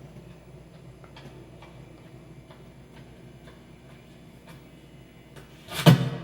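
Faint, regular ticking, about two ticks a second, then a sudden loud hit near the end.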